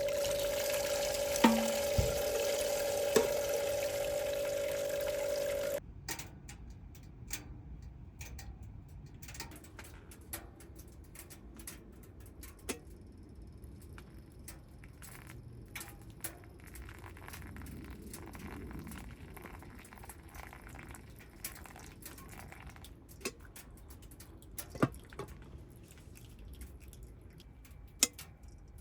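Water running from a small electric pump-fed camp sink tap, the pump motor giving a steady whine over the splash; it stops suddenly about six seconds in. After that, quiet with scattered light clicks and knocks.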